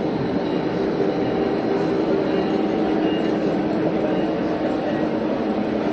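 G-scale model trains running around the layout: a steady hum of wheels rolling on the metal track and the locomotives' motors.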